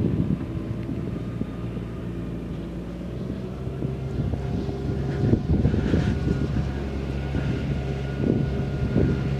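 Electric motor and propeller of an FMS 1450mm P-51D Mustang RC warbird droning in flight, a steady hum whose pitch shifts a few seconds in. Wind buffets the microphone throughout.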